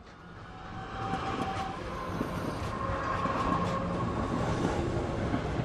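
HO scale model freight train rolling past close by: a steady rumble of wheels on the track with a few sharp clicks and a faint whine, growing louder over the first second.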